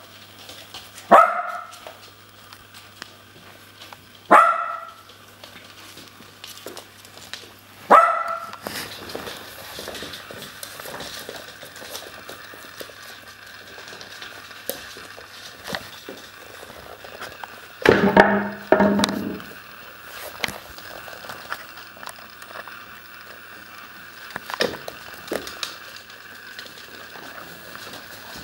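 Puppies barking while they play. Three sharp single barks come a few seconds apart, then a quick flurry of barks about two-thirds of the way through. Between them are soft scuffling and small clicks.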